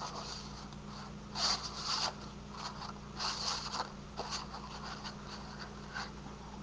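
Patterned paper rustling and scraping as it is slid about under a plastic craft punch to line up the pattern, in two short scratchy bursts followed by a few lighter ticks. A steady low hum runs underneath.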